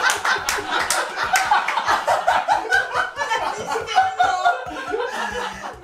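Two men laughing together.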